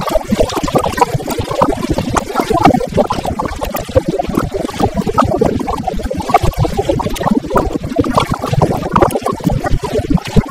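Wind and rain battering an action camera's housing on a motorcycle riding at highway speed in heavy rain: a dense, uneven spattering rush of water and air on the microphone, with no clear engine note.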